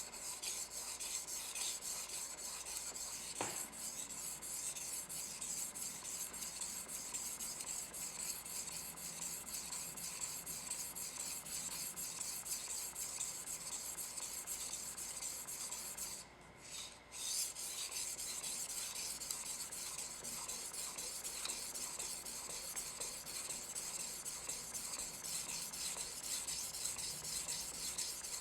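Hammered Damascus santoku knife blade scraped back and forth along a ceramic whetstone, a continuous gritty rasping, stroke after stroke, while its middle section is sharpened. The strokes pause briefly about sixteen seconds in.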